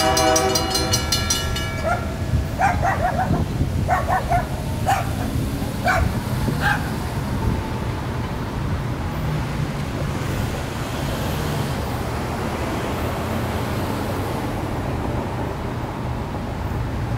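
Safetran mechanical crossing bells ringing with rapid, evenly spaced strikes, then cutting off suddenly under two seconds in as the crossing clears. After that, a few short barks, over a steady low rumble.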